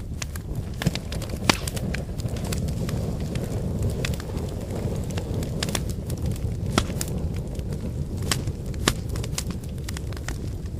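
Campfire of burning firewood: a steady low rushing of the flames with irregular sharp crackles and pops from the wood, one louder pop about a second and a half in.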